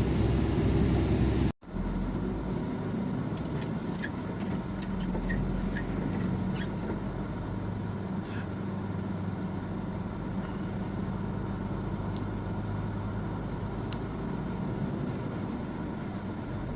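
Steady engine and tyre noise of a truck heard from inside its cab while driving along a road. There is a brief dropout to silence about a second and a half in.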